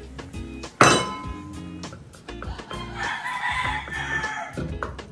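A rooster crows once, about three seconds in, over background music. About a second in there is a sharp clink of a glass bowl against a stainless saucepan.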